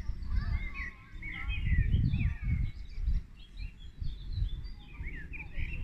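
Many small songbirds chirping and twittering in quick, short calls. Underneath runs a low, uneven rumble on the microphone, heaviest about two seconds in.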